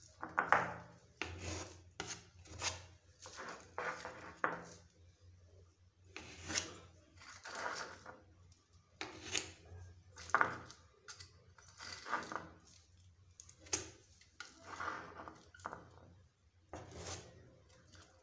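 Wet wood-filler paste being pressed and scraped into a gap along the bottom edge of a wooden door, in repeated irregular scraping strokes about one a second.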